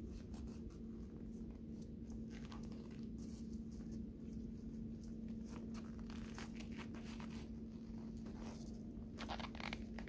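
Snow crunching and clothing rustling as a person climbs along a snow-covered leaning tree trunk, in scattered irregular crunches that grow more frequent near the end. Under it runs a steady low hum.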